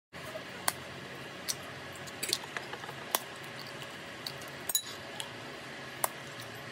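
Eggs being cracked against the rim of a bowl: sharp taps and shell cracks about once a second over a steady low hiss.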